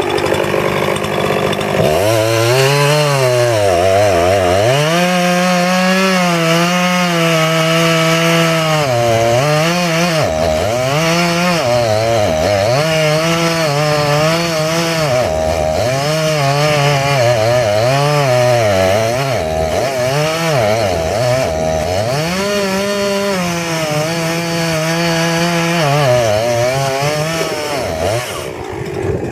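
Chainsaw cutting a dead tree, its engine pitch dipping again and again as the chain bites into the wood and recovering between dips.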